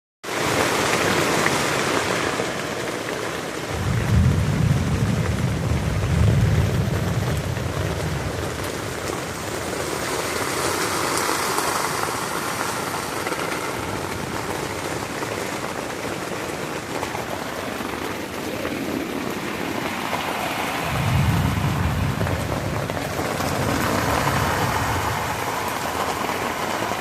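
Heavy rain falling steadily, with two low rolls of thunder, the first about four seconds in and the second about twenty-one seconds in.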